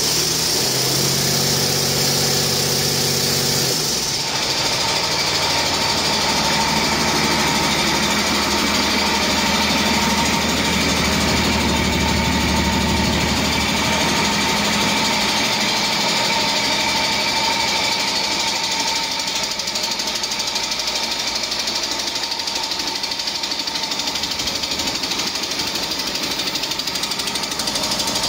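A 2018 Cummins ISB 6.7-litre inline-six turbodiesel running on a test stand with a steady diesel clatter. Its note shifts about four seconds in, and the deep drone eases off around the middle. The seller reports that the engine runs excellent.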